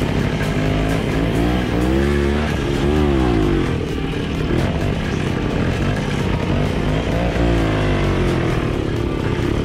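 Two-stroke single-cylinder WSK 125 motorcycle engines, revving up and down as the bikes ride along a sandy dirt road. The pitch climbs and falls back about two seconds in, and again near the end.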